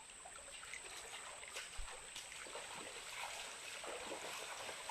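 Water of a waterfall and its rocky stream rushing in a steady, even wash, with a steady high-pitched whine above it.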